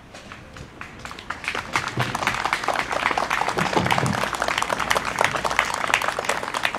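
A small crowd applauding. The hand claps start thin, build up about a second in, and carry on steadily before thinning near the end.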